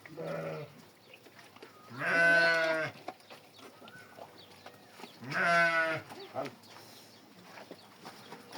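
Goat bleating three times: a fainter, shorter call at the start, then two loud, quavering calls about three seconds apart.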